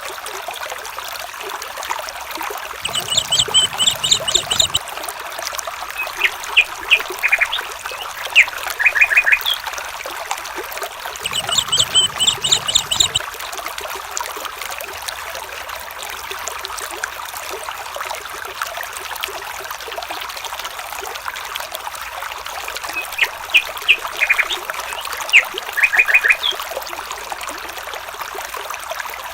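Steady running water of a stream, with animal calls over it: twice a rapid chattering trill, and between and after them short runs of quick, sharp chirping notes.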